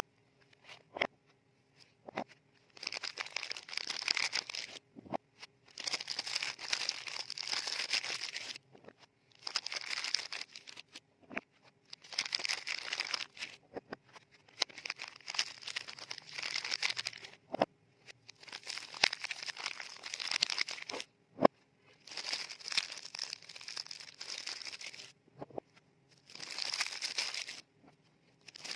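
Frosted paper soap wrapper crinkling as it is folded back around a soap bar, in about eight handling bursts of one to three seconds each with short pauses between. A few single sharp taps fall in the pauses.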